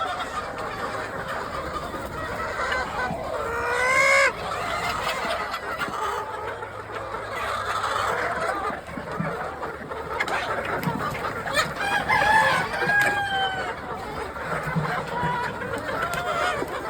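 A large flock of laying hens clucking and squawking continuously, with one loud rising call about four seconds in and a few clearer calls standing out later.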